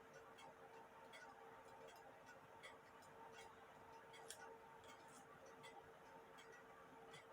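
Antique cuckoo clock movement ticking faintly and evenly, about four ticks every three seconds, over a faint steady hum.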